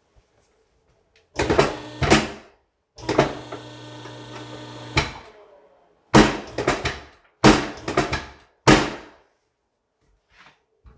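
A series of loud, sharp knocks and thuds: two about a second and a half in, then a run of them between about six and nine seconds. Between them, a steady machine-like hum lasts about two seconds and ends in a knock.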